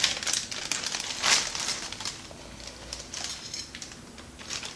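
Crinkling and rustling of the PC case's plastic accessory bag as cable ties and small parts are handled, in several irregular bursts with the loudest about a second in.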